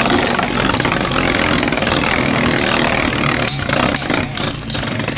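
Two Beyblade spinning tops, a 3D-printed one and a Wyvang Dragoon, whirring and scraping against each other in a plastic stadium. There is a cluster of sharp clacks from collisions between about three and a half and five seconds in.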